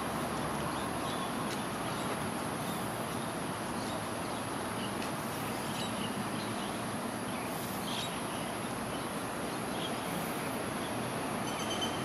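Steady roar of passing road traffic, with faint scattered bird chirps and a steady high insect buzz over it.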